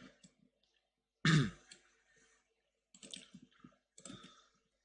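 A person gives one short cough about a second in, with a pitch that drops. A few softer mouse clicks follow near the end.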